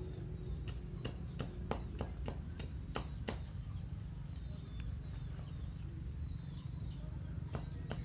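A small blade chopping and tapping on bamboo sticks, a quick irregular series of sharp knocks that stops about three seconds in and starts again near the end. A steady low rumble runs underneath.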